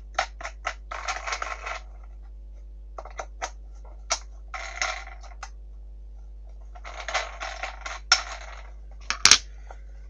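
Plastic Samsung vacuum floor brush being handled and turned over. A run of light clicks, then several short scraping rubs, and one sharp click near the end.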